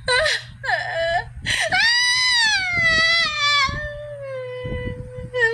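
A person crying: short sobs, then one long high wail about a second and a half in that slides slowly down in pitch over about three seconds, and another short cry near the end.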